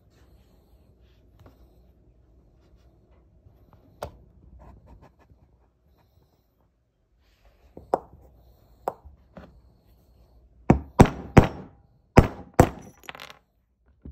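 Hammer striking a punch to drive the old bushings out of a model locomotive's plastic bushing block. A few single taps come first, then a quick run of about seven harder strikes near the end.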